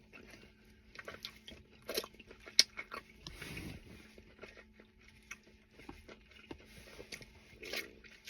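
Close-up eating sounds: a person biting and chewing meat off a barbecue rib, with scattered wet mouth clicks and smacks.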